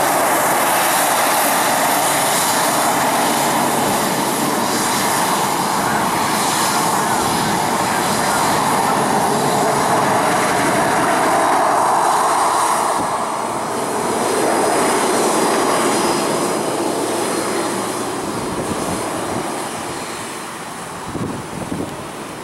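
Embraer 190 jet's twin CF34 turbofan engines running at taxi power as the airliner rolls past, a steady jet rush and hiss that fades in the last few seconds as it moves away.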